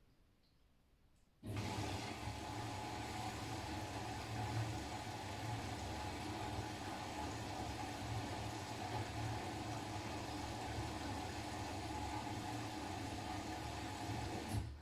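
Siemens iQ500 washing machine taking in water: the inlet valve opens about a second and a half in with a sudden steady rush of water and a low hum, and cuts off at the very end.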